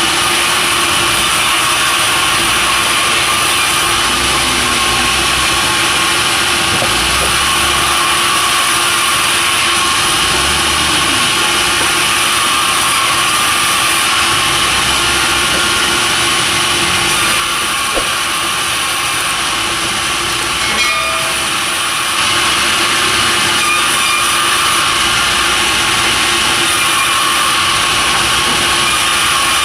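Sawmill machinery running steadily, a saw cutting timber into pallet stock, with a constant hum and whine over a loud rushing noise. It drops slightly for a few seconds past the middle, then comes back up.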